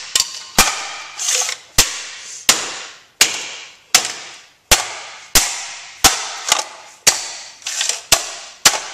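Claw hammer repeatedly smashing a cracked plastic computer speaker on a concrete floor: about a dozen sharp blows, roughly one every half-second to second, each with a short rattling tail.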